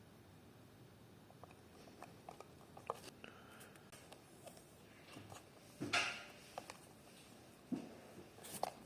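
Handling sounds from unboxing in-ear earphones: scattered small clicks, taps and rustles of the box, packaging and parts, with a louder brief rustle about six seconds in and a few more near the end.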